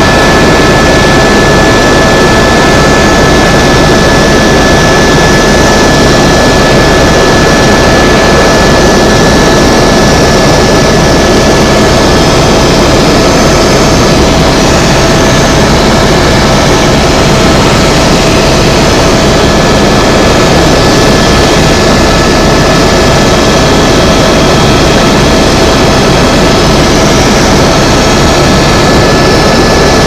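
Tour helicopter in flight: loud, steady rush of turbine and rotor noise with a steady high whine on top.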